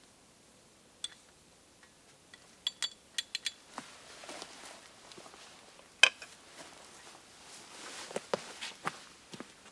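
A few light metallic clinks of camp cookware, then footsteps and rustling through dry leaf litter, with scattered knocks and one sharp click about six seconds in.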